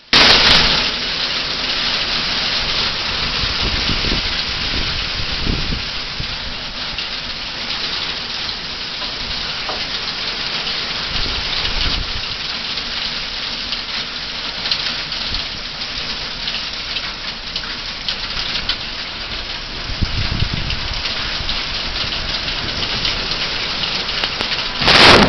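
Heavy rain pouring down steadily, with low rumbles of thunder a few times. Near the end comes a sudden, very loud crash from a very close lightning strike.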